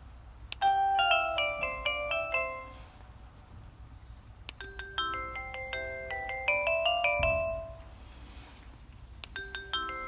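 Nest Hello video doorbell playing its Christmas-theme ringtone: short melodies of quick, bell-like chiming notes, three times, starting about half a second in, about four and a half seconds in, and near the end.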